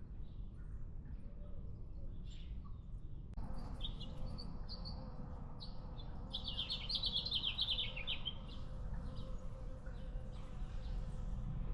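Small songbirds chirping. Midway one bird sings a fast run of quick downward-sliding notes for about two seconds, over a steady low rumble.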